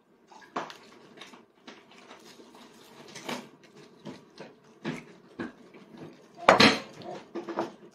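Scattered light clinks and knocks of dishes and tableware on a table during a meal, the loudest about six and a half seconds in.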